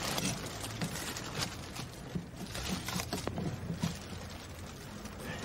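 Light knocks, clicks and rustles of objects being handled and set down in a car, scattered irregularly, over a steady low background hum.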